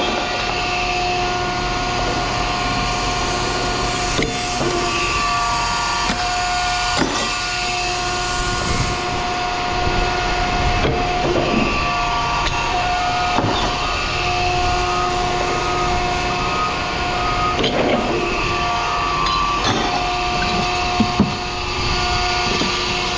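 Steady machine hum carrying several constant tones that fade in and out, with scattered clicks and knocks of metal being handled.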